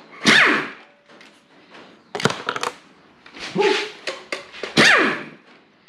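Impact wrench (rattle gun) firing in about four short bursts to undo bolts, its motor whining down in pitch after the bursts.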